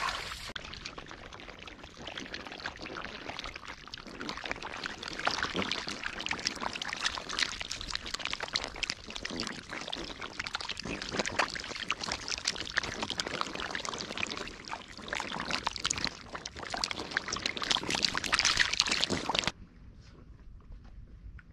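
Many catfish writhing together in mud and shallow water, a dense run of small wet slaps and splashes. It cuts off abruptly near the end, leaving only faint background noise.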